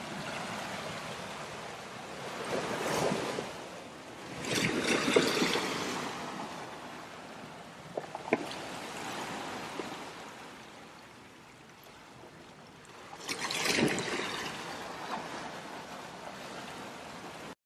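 Small sea waves washing and splashing over a shoreline rock. There are three louder splashing surges, with quieter lapping water between them.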